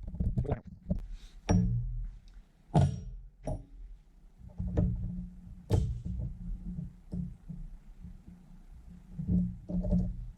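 Background music with a guitar, with several sharp knocks and taps spread through it.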